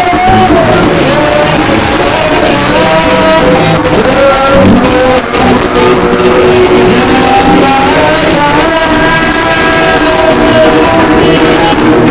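Loud rock-style music with guitar and a melody line of held notes.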